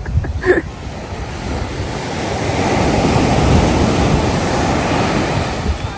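Ocean surf: a wave washes in, swelling to a peak about halfway through and easing off near the end, with wind buffeting the microphone.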